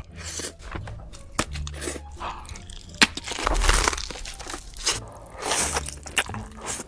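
Close-miked eating: noodles slurped in two longer hissing pulls, chewing, and crisp crunchy bites with sharp mouth clicks.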